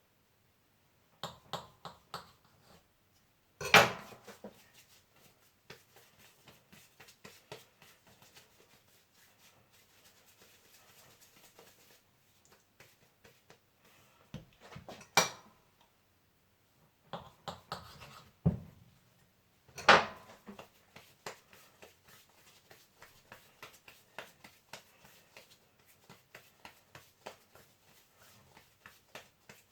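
Knife cutting risen dough into slices on a board: many small taps and scrapes of the blade, with three sharp, louder knocks about 4, 15 and 20 seconds in.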